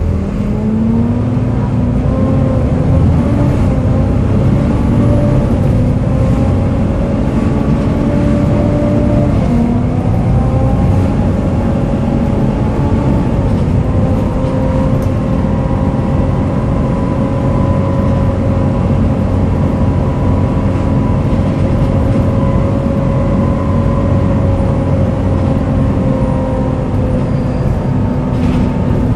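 Volvo B7TL double-decker bus under way, heard from inside the upper deck: engine rumble with a loud, hoover-like whine from its cooling fan. The whine rises about a second in, shifts slightly around nine seconds in, then holds steady.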